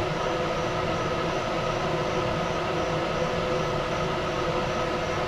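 Steady machine whir, a constant hum with a faint tick about three times a second, not the crackle of a welding arc.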